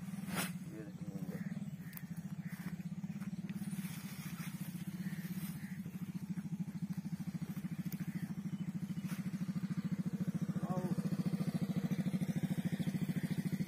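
A small engine running steadily with a fast, even pulse, growing a little louder toward the end. A sharp click sounds about half a second in.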